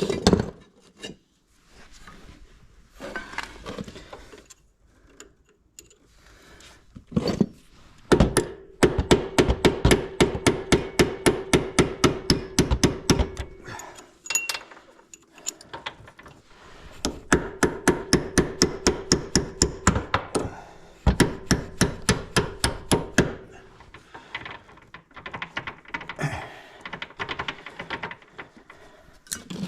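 Hammer striking a pin punch to drive a roll pin out of an ATV drive shaft's U-joint yoke: a few single taps, then two long runs of quick, even blows, about five a second, each with a metallic ring.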